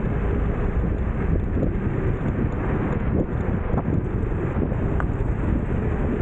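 Steady wind buffeting the microphone while riding an electric scooter, a continuous low rushing with no break.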